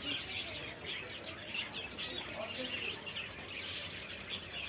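Small birds chirping and tweeting, many short chirps overlapping, with a few lower curving calls about halfway through.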